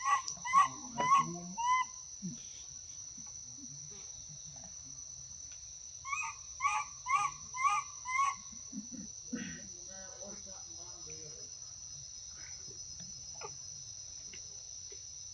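Baby macaque giving short, high calls: about four in the first two seconds, then a run of five evenly spaced about half a second apart a little past the middle. A steady high insect drone runs underneath.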